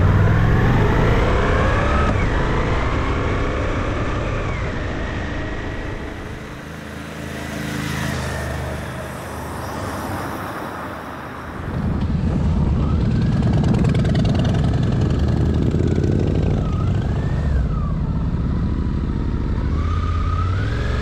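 Motorcycle engine on the move, revving up with rising pitch as the bike pulls away. About six seconds in it drops to a quieter pass along a street, then the loud on-board engine rumble returns about halfway through, rising and falling in pitch with the throttle.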